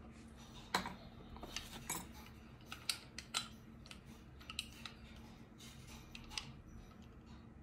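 Irregular sharp clicks and taps of a condenser microphone's parts being handled and pried at while it is taken apart, bunched in the first half with a few more later.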